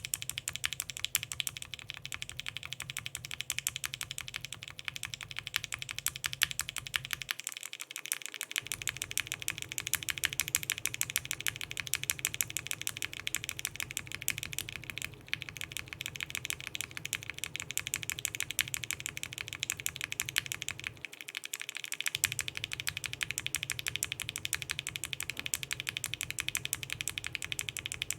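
Steady, fast typing on a mechanical keyboard with Gateron Ink linear switches fitted with UHMWPE stems and PBT keycaps, giving dense, even clacks. The typing stops briefly twice as the switch housing tops change, from stock Ink tops to Gateron Milky tops and then to Cherry tops.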